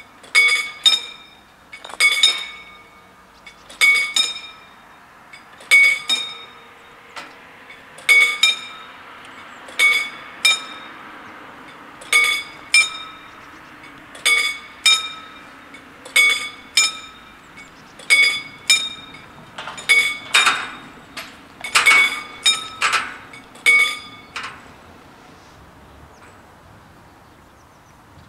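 Two level-crossing warning bells striking single metallic strokes, one after the other, so that a pair of strikes comes about every two seconds. This is the warning that the crossing is closing for an approaching train. The bells stop a few seconds before the end, as the barriers come fully down.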